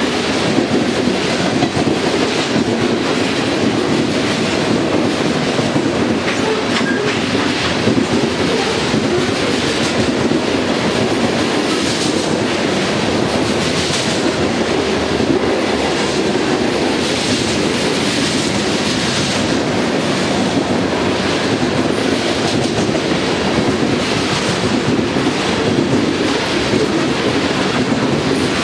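Covered hopper cars of a BNSF freight train rolling past close by: a loud, steady rumble of steel wheels on rail, with regularly repeating clicks as the wheel sets pass over the rail joints.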